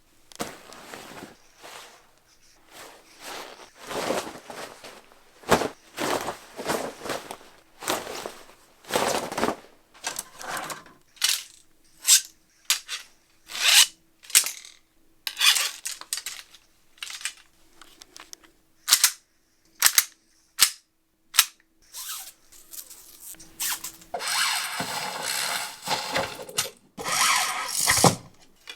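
A real bow being shot for game sound effects: a long run of short, sharp snaps and swishes from the bowstring and arrows, one after another, with a few longer noisy swishes near the end.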